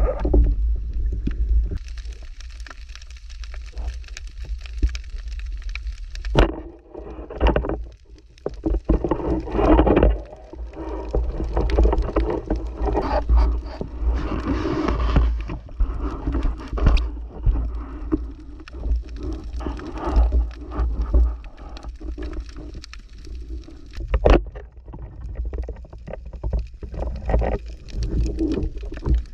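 Underwater noise heard through a camera in a waterproof housing: a heavy low rumble with irregular swells of muffled sloshing and bubbling water, and a few sharp knocks.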